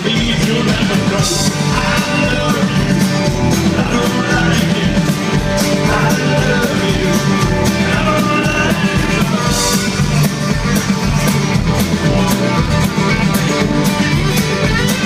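Live band playing a country-rock song: acoustic and electric guitars, electric bass and drums, loud with a steady beat.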